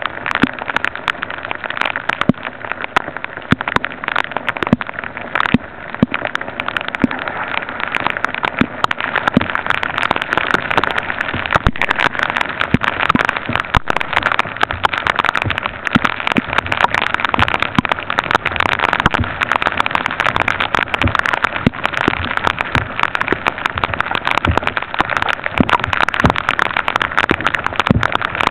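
Steady rain, heard as a dense, irregular stream of close raindrop ticks over a constant hiss.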